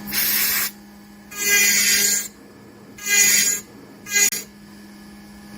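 Four separate strokes of a tool rasping across wood, each under a second long, the last one shortest, over a steady low hum.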